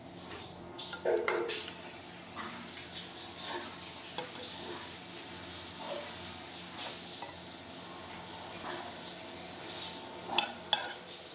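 Cooking in a pan: a steady sizzle with a metal utensil stirring and clinking against the pan, and two sharp clinks near the end.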